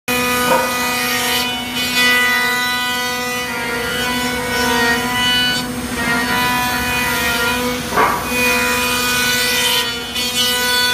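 CNC router milling a wooden air-rifle stock: a steady spindle whine under the rasping of the cutter in the wood, with a brief louder cut about eight seconds in.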